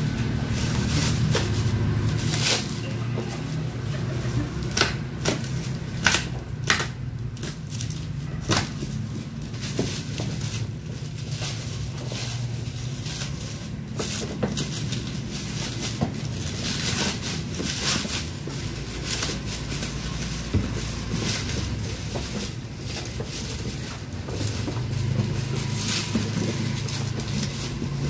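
Black plastic wrapping and tape being torn and crumpled off a cardboard box: an irregular string of sharp crackles and rips, over a steady low hum.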